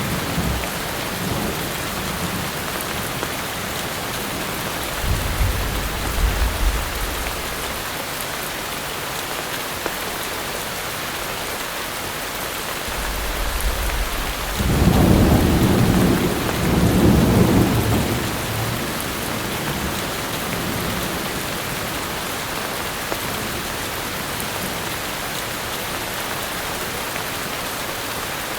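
Heavy rain falling steadily, with thunder rumbling twice: a short low rumble about five seconds in, and a louder, longer roll around the middle.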